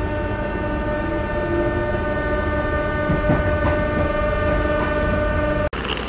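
Passenger train running: a steady low rumble with a held, droning tone over it, cut off abruptly near the end.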